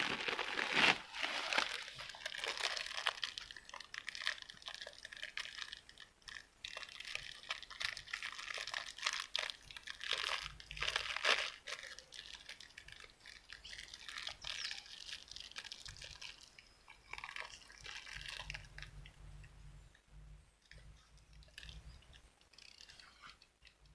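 Irregular rustling and crackling with many small sharp clicks and a few low rumbles, fading toward the end.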